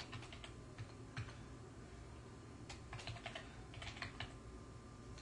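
Computer keyboard typing: a few short runs of faint keystrokes with pauses between them.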